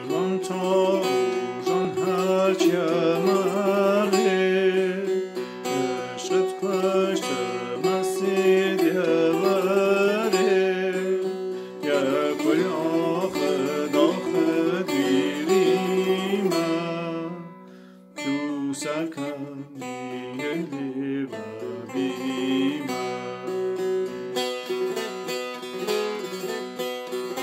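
Setar, a Persian long-necked three-string lute, plucked and strummed with the index finger, with a man singing a Laki song over it for roughly the first seventeen seconds. After a short pause about eighteen seconds in, the setar carries on alone with repeated plucked phrases.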